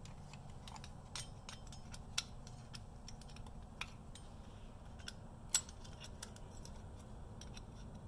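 Faint, scattered light metallic clicks and scrapes as a pick works the thrust washers out of the wheel hub's bore, with one sharper click about five and a half seconds in.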